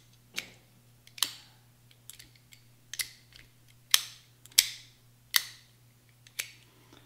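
Sharp metallic clicks of a reassembled AR-15 bolt carrier group being handled, its bolt and pins shifting in the carrier: about eight separate clicks at uneven intervals.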